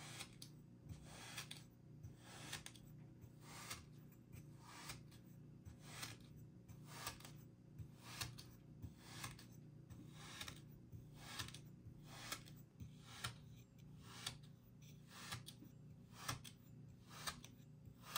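Kinetic sand being sliced over and over: a steady string of short, faint cutting strokes, about two a second, over a low steady hum.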